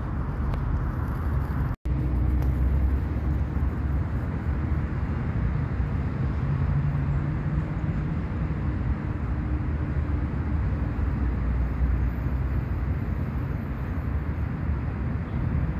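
Steady low outdoor rumble with a faint hum, cutting out for an instant about two seconds in.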